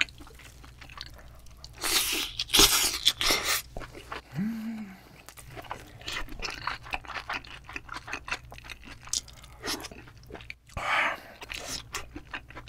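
Close-miked chewing of a big mouthful of raw yellowtail rice bowl mixed with fresh lettuce and greens. The loudest, densest chewing comes about two to three and a half seconds in, then it settles into softer, scattered chewing.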